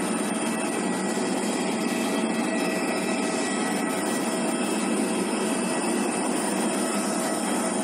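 Steady jet-turbine noise on an airport apron: an even rush with several steady whining tones over it, including a high thin whine.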